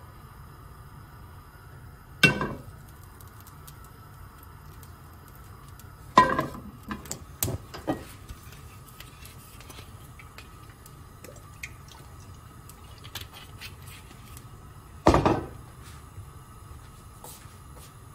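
Pots and pans being handled on a gas cooktop's metal grates: a nonstick frying pan and cookware are set down with sharp knocks about 2, 6 and 15 seconds in. A few lighter clinks follow the second knock. Under them runs a steady low hum.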